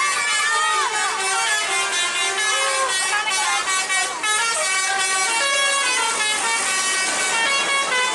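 Tour buses' telolet basuri melody horns playing tunes over one another without a break, several horns answering each other at once in stepping and gliding notes.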